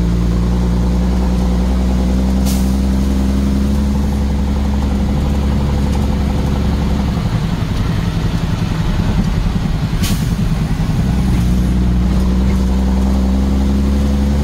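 Motor vehicle engine running with a steady low hum while driving. From about seven seconds in the steady hum gives way to rougher noise for a few seconds, then returns, with two brief hisses at about two and a half and ten seconds in.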